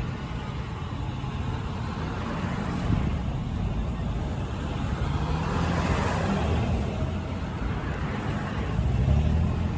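Street traffic: vehicle engines running and passing, with one vehicle swelling past about six seconds in and a louder engine near the end.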